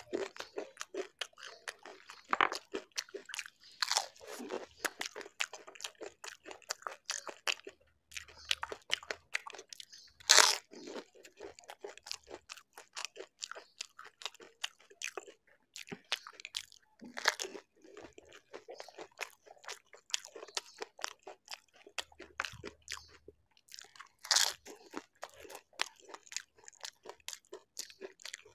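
Close-miked eating: crisp dahi golgappa (pani puri) shells crunching as they are bitten, then chewed with steady crackly mouth sounds. A few loud, sharp bites stand out, about seven seconds apart in the second half.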